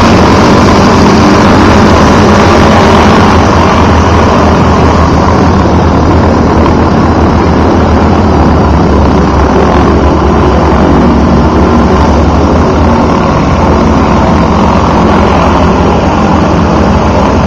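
North American T-6 Texan aircraft taxiing past, their Pratt & Whitney R-1340 radial engines running loud and steady with propellers turning.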